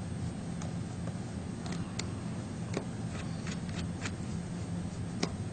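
Faint, irregular light clicks and ticks of a small screwdriver backing tiny screws out of an iPhone 3G's casing, over a low steady hum.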